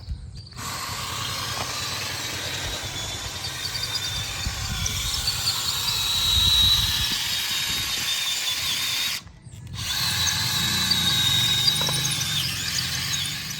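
Power drill running in two long stretches with a steady high whine, stopping briefly about nine seconds in before starting again.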